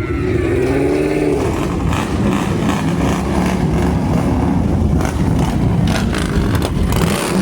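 Motor vehicle engines running in a steady, loud rumble, with a wavering tone in the first second or so.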